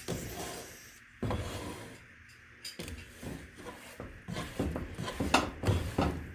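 A spoon stirring and scraping a thick, sticky no-bake cookie mixture around a cooking pot: irregular rubbing scrapes, with a brief lull about two seconds in and quicker strokes in the second half.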